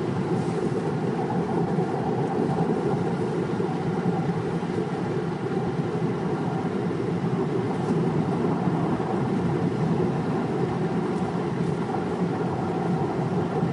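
Steady road and engine rumble from inside a moving car's cabin.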